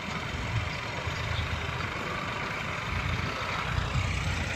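Massey Ferguson tractor's diesel engine running steadily, getting a little louder near the end.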